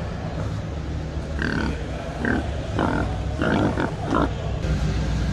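A steady low hum of a large hall, with a handful of short, harsh, voice-like sounds about half a second apart in the middle.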